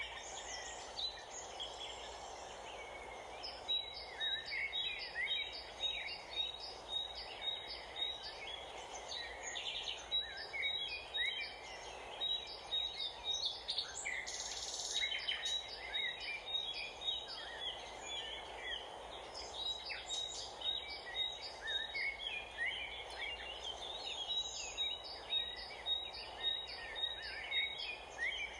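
Wild songbirds chirping and calling, with a short high note repeated in quick runs, over a steady background hum.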